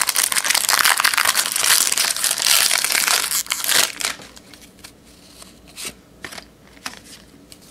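A foil trading-card pack wrapper torn open and crinkled for about four seconds, then a few light clicks and rustles as the cards are handled.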